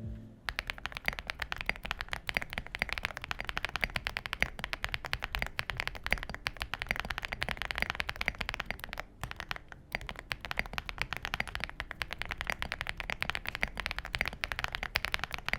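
Typing on a mechanical keyboard fitted with HMX Game 1989 linear switches: stock factory-lubed, full-travel, pole bottom-out switches in an Aula F65 with a plastic case and foam. Rapid, continuous keystrokes, with a few brief pauses.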